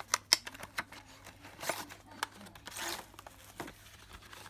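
Product packaging being opened by hand: scattered light clicks and taps with short bursts of rustling and crinkling, twice, as a small boxed soldering iron is unboxed.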